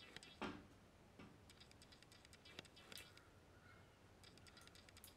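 Mostly near silence with a few bursts of faint, quick, light clicking, from small dog nail clippers being worked around a dog's toenail. A soft breath-like sound comes about half a second in.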